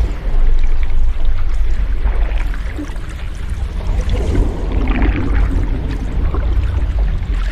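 Ocean waves washing, a continuous surf with a strong deep rumble underneath and a wave swelling about four to five seconds in.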